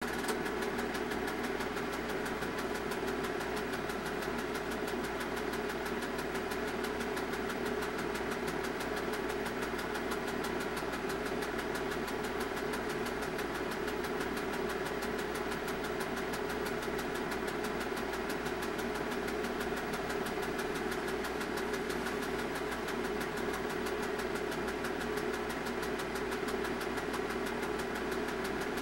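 Film projector running: a steady mechanical whir with a fast, even clatter from the film transport.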